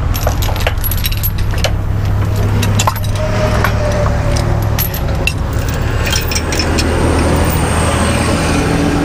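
Steel tow chain clinking and rattling as it is handled and hooked, with a quick run of sharp clinks in the first two seconds and scattered ones after. A steady low engine hum runs underneath.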